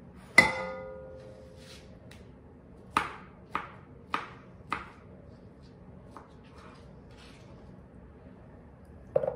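A metal utensil clinks against a bowl with a short ringing tone. Then a kitchen knife chops peaches on a plastic cutting board: four cuts about half a second apart, then a few fainter cuts later.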